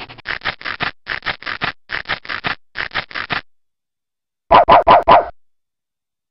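Sampled cartoon-dog sound effects of the After Dark 3.2 'Bad Dog' screensaver: quick short dog sounds in fast clusters of three for about three and a half seconds, then, after a pause, four louder barks in quick succession.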